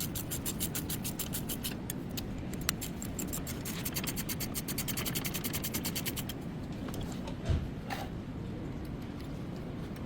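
Rapid, even mechanical clicking in two runs, the second stopping about six seconds in, followed by a single thump a little later.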